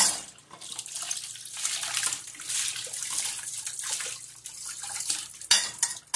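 Kitchen tap running into a stainless steel sink as a white plate is rinsed under the stream, water splashing off the plate. A short clatter comes near the end.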